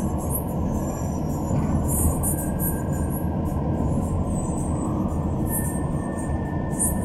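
Steady rumble of engine and tyre noise heard inside the cabin of a vehicle driving along a road.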